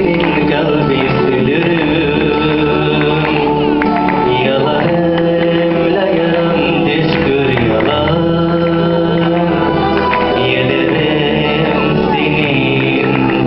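A man singing into a handheld microphone over backing music, amplified through a stage sound system.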